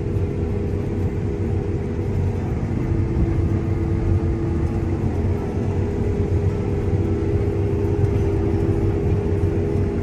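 Steady drone of a harvest machine's engine running as it moves through the field, with a constant hum of a few held tones that does not change.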